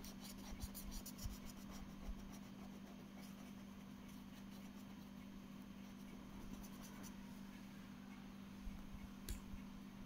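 Marker pen scratching on paper in quick short strokes while colouring in a spot, busiest in the first two seconds and then in scattered bursts. A steady low hum runs underneath, and a single click comes near the end.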